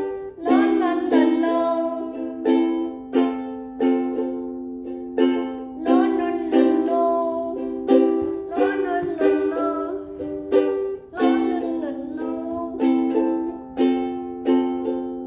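Song cover: a ukulele strummed in a steady rhythm, with a solo voice singing over it in places.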